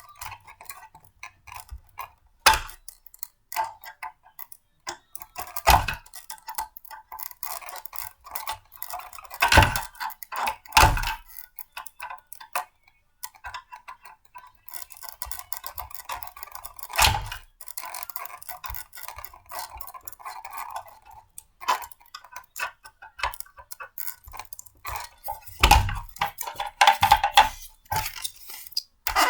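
Blender parts being handled and fitted together: irregular plastic and glass clicks, knocks and clatter, with a few louder knocks as pieces are set down or pushed into place.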